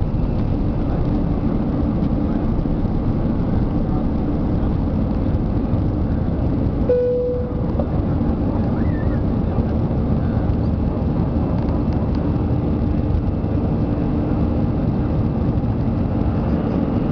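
Airbus A320-200's jet engines running at takeoff thrust, heard from inside the cabin as a steady, loud noise through the end of the takeoff roll, lift-off and initial climb. A brief steady tone sounds about seven seconds in.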